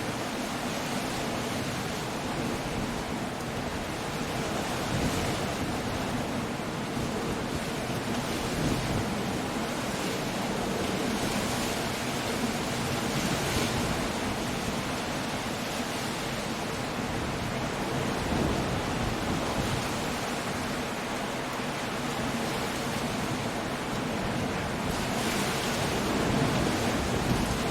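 Coastal storm: wind, rain and waves breaking on the shore blend into a steady rushing noise. It swells briefly several times, most strongly near the end.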